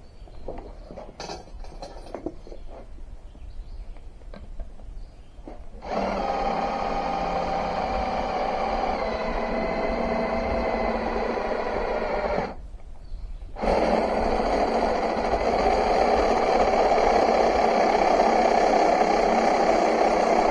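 Power drill boring a hole for a switch, the motor running steadily under load for about six seconds, stopping briefly, then running again for about seven seconds. Quieter handling sounds come before it.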